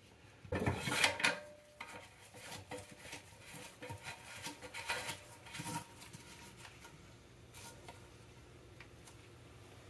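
Clicks, knocks and rubbing from hands reconnecting a toilet supply line, threading its coupling nut onto the shank of a new fill valve under the tank. The sounds are loudest in the first second or so, then come as scattered small clicks that thin out after about six seconds.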